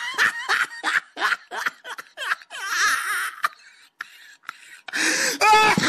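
A person's voice making non-speech sounds: a run of short, rapid bursts, then a quieter stretch, and a louder drawn-out vocal sound about five seconds in.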